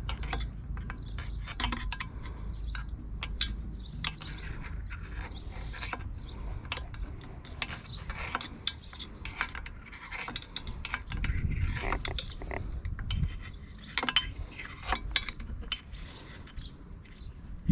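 Irregular clicks, taps and scrapes of hand tools and metal and plastic parts as a Stihl 051 chainsaw is taken apart on the bench, with a steady low hum beneath.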